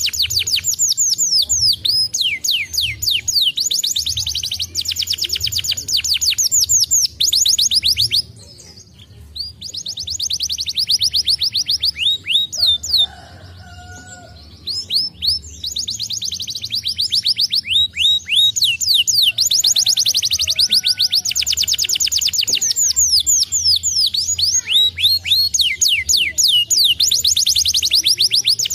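Domestic canary singing: long, fast trills of rapidly repeated notes mixed with falling sweeps, broken by two short pauses about a third of the way in and around the middle.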